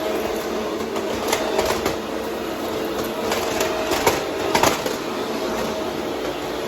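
Vacuum cleaner with a spinning brushroll running steadily with a constant hum, with sharp crackling a few times as debris is picked up.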